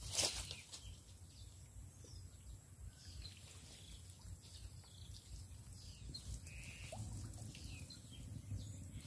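Faint outdoor ambience: a low, uneven wind rumble on the microphone with a few short, scattered bird chirps. A brief noise sounds right at the start.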